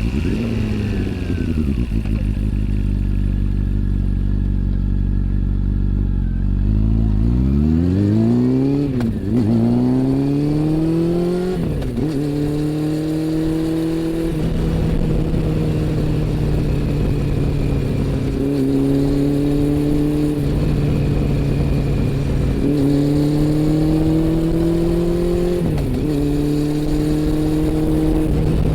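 Honda CB400 Super Four's inline-four engine on the move. The revs drop and hold low for several seconds, then climb steeply about seven seconds in, with a quick break at a gear change. After that the engine runs at a fairly steady speed, dipping briefly and pulling back up several times as it shifts and adjusts throttle.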